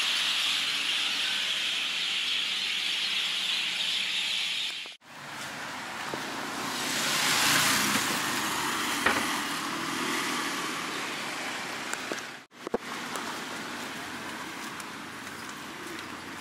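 Steady hiss of rain falling, with a vehicle swishing past on the wet road about halfway through, swelling and fading. The sound breaks off abruptly twice.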